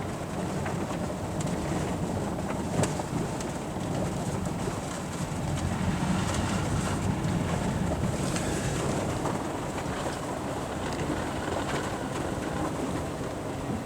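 Steady road and engine noise heard inside a moving car, a low rumble with a faint click about three seconds in.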